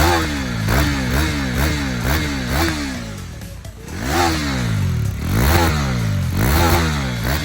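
Stock KTM Duke 390 single-cylinder engine revved hard while standing: a quick run of short throttle blips, then three longer revs climbing and dropping back about a second apart.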